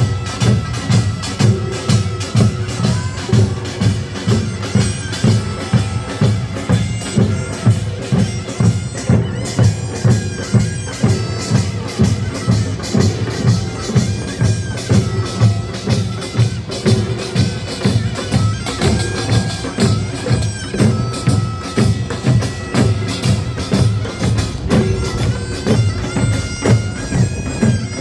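Gyeongsang-do nongak farmers' band music: a taepyeongso shawm plays a held, reedy melody over gongs and drums beating a steady, driving rhythm.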